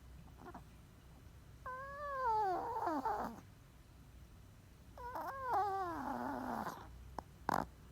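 A sleeping pet snoring: two long whistling breaths a few seconds apart, each sliding down in pitch and turning raspy at the end, then a short snort near the end.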